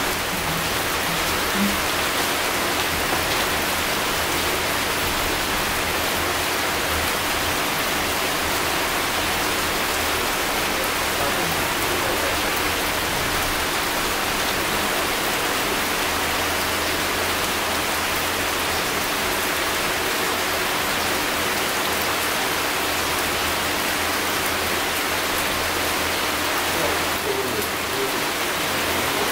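Steady rain falling on tree foliage, an even hiss that does not let up.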